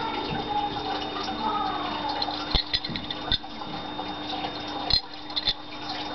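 Handling noise from a metal-sheathed dagger being turned over in the hand: several sharp clicks and knocks in the second half, over a steady hum and hiss.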